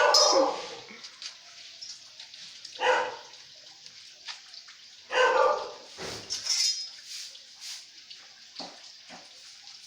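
A dog barking: a few short, separate barks spaced a couple of seconds apart.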